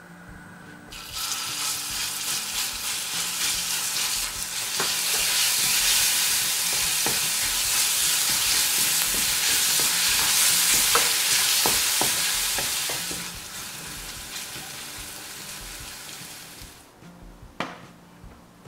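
Chopped garlic sizzling in hot olive oil in a frying pan, stirred with a wooden spatula that clicks against the pan now and then. The sizzle starts about a second in, is loudest in the middle, and dies away a little before the end, followed by a single sharp tap.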